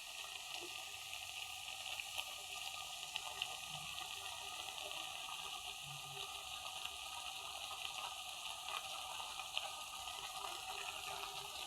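Pork and vegetables frying in a pan: a steady sizzle with a few small pops.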